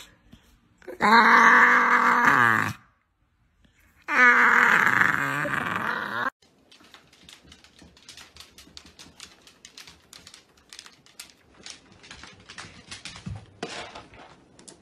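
A pit bull-type dog makes two long groaning vocalisations, each sliding down in pitch, with a short silence between. After them, in the second half, come faint scattered clicks and knocks of a dog's claws and a food bowl on a wooden floor.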